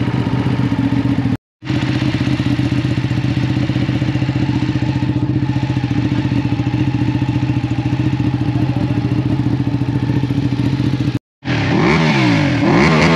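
Ducati sportbike engine idling steadily, then revved with repeated quick throttle blips near the end.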